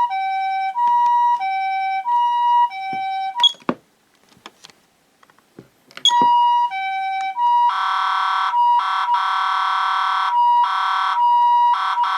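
Patlite SAP-500RBVK-N siren amplifier sounding the Japanese two-tone "pee-poh" ambulance siren, a high and a low tone alternating, each held about two-thirds of a second. It is switched off a little over three seconds in, with a few faint clicks in the pause, and comes back on about six seconds in. From about eight seconds a harsh buzzing tone sounds over it in bursts of about a second with short breaks.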